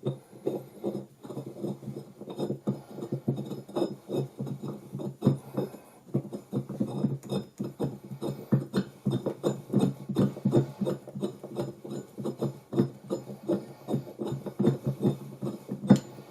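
Metal microphone-stand pole and heavy metal base knocking and clinking together as the pole is turned and screwed into the base: a rapid, irregular run of small knocks with a faint metallic ring.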